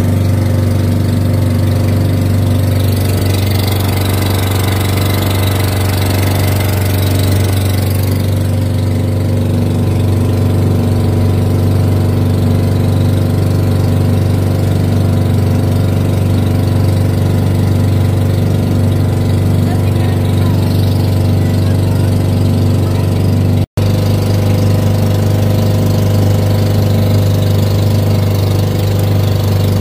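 Engine of a motorized outrigger boat running steadily under way, a loud even drone with a deep hum. The sound drops out for an instant about two-thirds of the way through.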